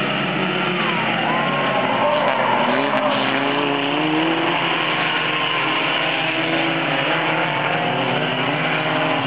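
Several Pony Stock race cars racing together: a pack of engines running at once, their pitches rising and falling as the drivers accelerate and lift.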